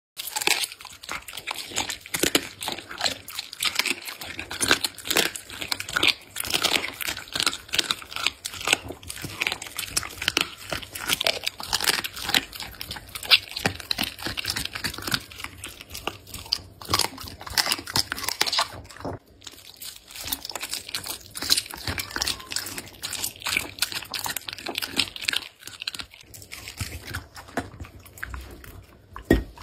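A border collie chewing raw duck neck and raw meat close to the microphone: a dense, rapid run of crunches and clicks as its teeth break through bone and flesh, broken by a few short pauses.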